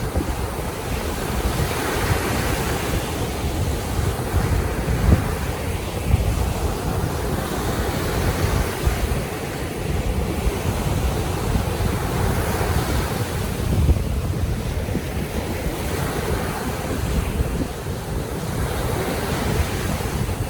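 Baltic Sea waves breaking in a steady series, a new surge every few seconds, over wind rumbling on the microphone.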